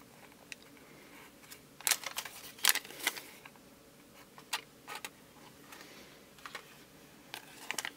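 A small folded paper instruction leaflet being handled: scattered soft crinkles and clicks, the loudest about two to three seconds in, with a few more near the end.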